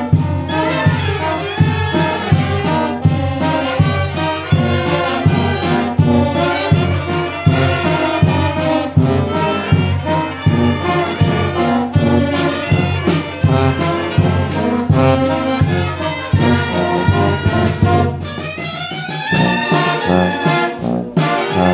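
Mexican banda de viento playing: saxophones, trumpet and sousaphone over a steady beat from a bass drum with mounted cymbal and a snare drum. Near the end the drums drop back briefly and the horns play a rising run.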